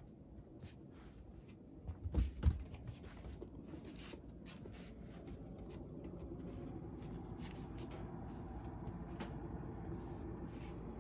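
A house cat jumping down from a wooden bench, landing with two soft thumps about two seconds in, followed by faint light clicks as it moves off. A low steady hum grows gradually louder in the second half.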